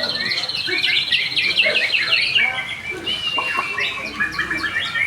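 Caged songbird singing a fast, varied song of trills and chirps, with a long steady whistle starting about three seconds in.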